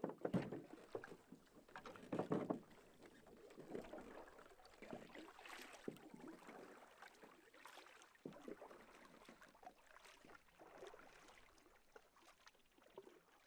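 Faint canoe paddling: soft, irregular swishes of a paddle dipping and pulling through the water, with a few light knocks.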